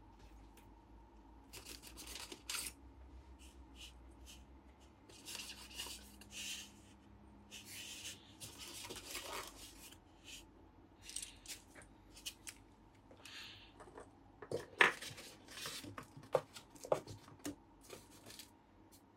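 Clear plastic wrap crinkling and rustling in irregular bursts as hands dig through a styrofoam packing tray, with a few sharp clicks and knocks of small plastic parts, the loudest about fifteen seconds in.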